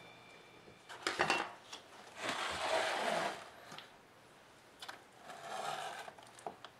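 Plastic tub being handled on a wooden workbench: a few sharp knocks, then two scraping, rubbing passes of about a second each.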